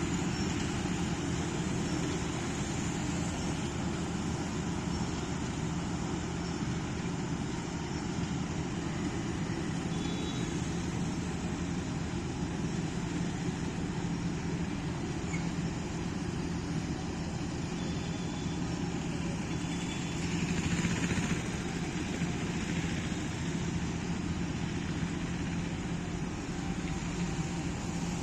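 Preet 987 combine harvester running steadily while cutting paddy: a steady engine drone with a constant low hum, briefly a little louder about twenty seconds in.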